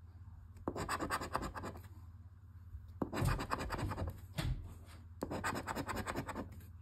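A coin scraping the silver coating off a scratch-off lottery ticket in three spells of rapid back-and-forth strokes, with short pauses between.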